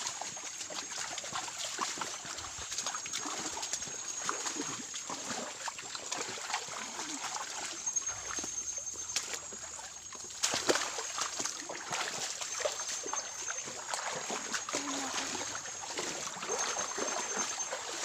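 Feet wading and splashing in a shallow muddy creek, mixed with leaves and brush rustling as people push through, in short irregular bursts with a louder splash about ten seconds in. A thin, steady high-pitched whine runs underneath.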